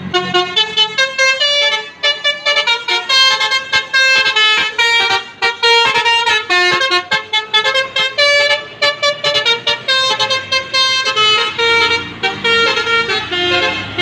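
Basuri telolet horn on a coach bus playing a fast melody: short, bright horn notes follow one another quickly and jump up and down in pitch, with a couple of brief breaks between phrases.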